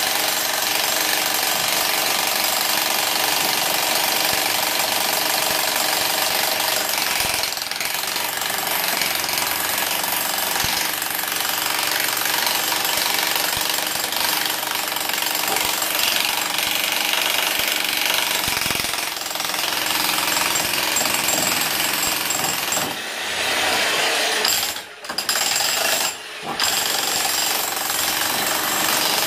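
Corded electric Powerhouse demolition hammer breaking concrete and rubble, hammering continuously with two brief pauses near the end.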